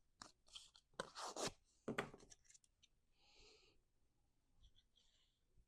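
Cardstock being handled and pressed: a few short crisp rustles and rubs of paper in the first couple of seconds, then fainter, softer rustling.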